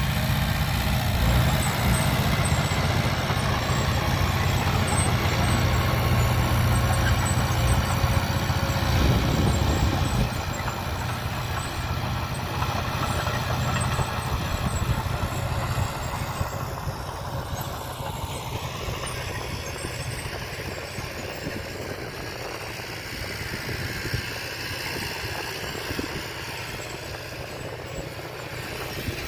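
Heavy truck engine running steadily with a low hum. About ten seconds in it drops in level and turns rougher.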